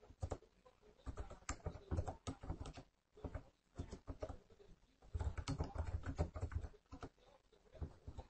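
Computer keyboard typing: irregular runs of keystrokes, densest about five to six and a half seconds in.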